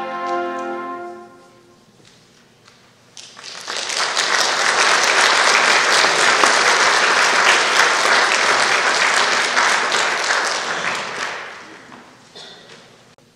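A string orchestra holds its final chord, which dies away in the first second or so. After a short pause an audience bursts into applause that lasts about eight seconds and then fades out.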